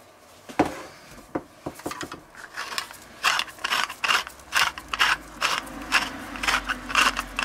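Hand-twisted metal spice mill grinding seasoning: a few clicks, then a fast run of short crunching rasps, about three a second, from about two and a half seconds in.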